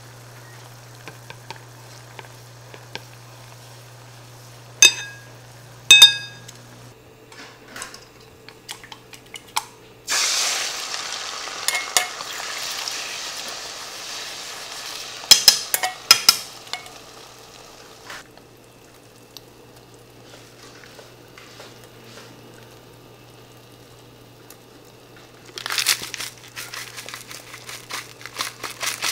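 Beaten egg hitting hot oil in a frying pan: a sudden loud sizzle about ten seconds in that fades over several seconds, with sharp clinks of utensils against the pan. Before it, a simmering sauce is stirred with chopsticks over a low hum, with two sharp ringing clinks. Near the end there is a burst of rapid light tapping.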